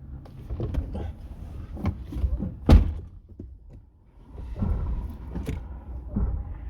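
A series of knocks and clicks over a low rumble, with one loud thump about two and a half seconds in.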